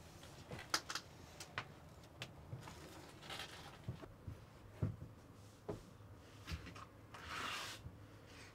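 Quiet bus interior: a faint steady low hum under scattered small knocks and clicks, with a short rustle about seven seconds in.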